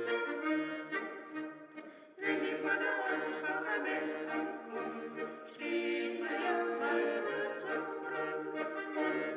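Background music: one passage fades out about two seconds in, and a louder, fuller piece begins abruptly.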